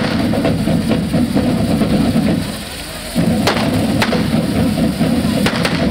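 Firecrackers going off in four sharp cracks over the second half, over a steady loud din.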